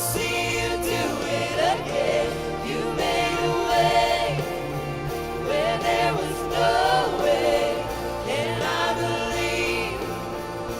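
Congregational worship music: a choir or group of voices singing a slow gospel song over instrumental accompaniment.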